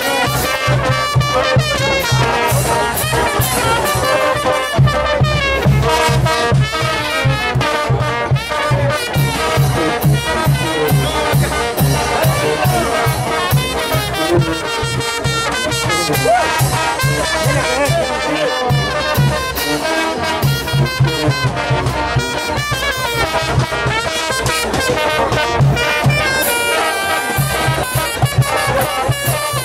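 Brass band playing a tune over a steady low beat.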